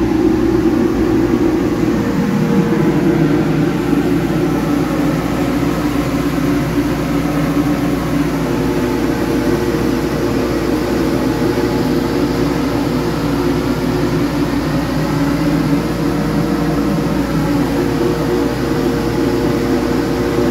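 Dust extractor's fan running, a steady machinery drone with a held hum tone throughout.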